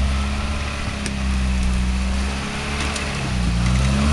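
Toyota off-road vehicle's engine running at low revs as it crawls over the trail, the revs rising a little near the end.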